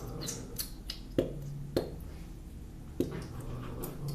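Slime-making handling sounds: four sharp taps or clicks of a plastic glue bottle and container, spaced unevenly, with faint squishy pouring sounds between them.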